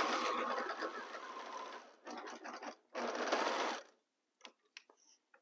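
Electric sewing machine stitching a seam: it runs for about two seconds, then in two short spurts as the seam reaches its end, followed by a few faint clicks.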